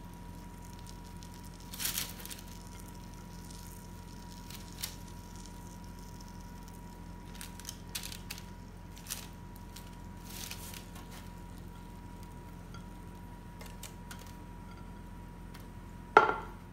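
Faint squishing and light taps of onion pieces being pressed into an oily baking tray of roasted potatoes, over a steady low hum. A sharper knock comes near the end.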